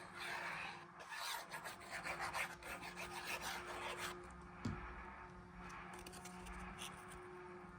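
Cardstock rustling and rubbing as a glued panel is slid and pressed into place by hand, over the first four seconds or so, followed by a single soft tap of paper on the work surface.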